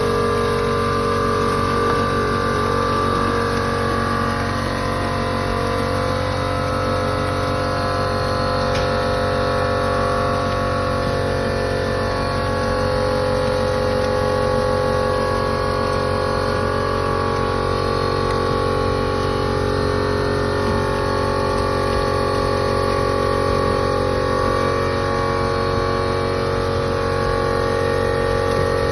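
A machine running with a steady, unchanging hum, holding several steady tones.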